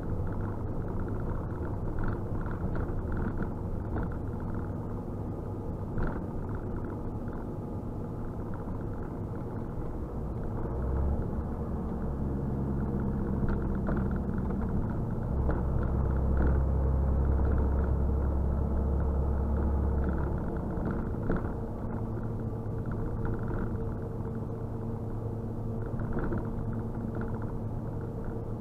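Truck engine running inside the cab while driving in city traffic, a steady low drone that grows louder and heavier for several seconds near the middle as the engine works harder, then settles back.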